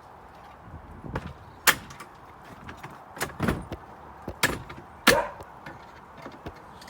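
A handful of irregular knocks and clunks, about a second apart.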